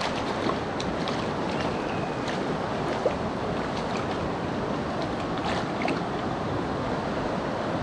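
Steady rush of flowing stream water, with a few faint ticks.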